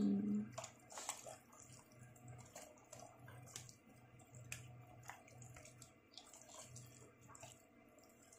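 Hands squishing and rubbing raw chicken pieces with lemon juice in a stainless steel bowl: faint wet squelches and scattered small clicks of the pieces against the metal, over a steady low hum.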